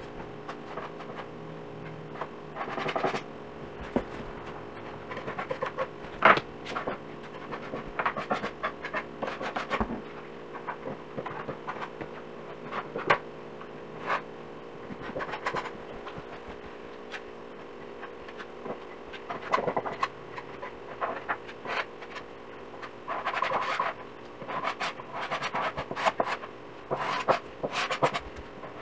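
Putty knife scraping and tapping as wood filler is scooped from its container and pressed into a crack in a wooden tabletop: irregular short scrapes and clicks, some in quick clusters. A steady low hum runs underneath.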